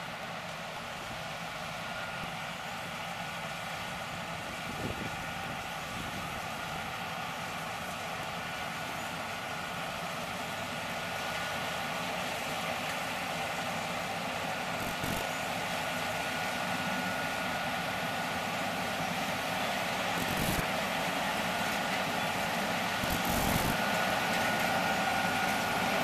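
New Holland CR 8080 combine harvester running and cutting soybeans, its engine and threshing machinery a steady drone with a thin high whine, growing louder as it draws nearer. A few brief bumps come near the end.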